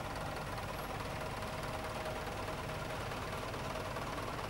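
Vintage tractor engines running steadily with a low, even beat as a Fordson Major tractor drives slowly past.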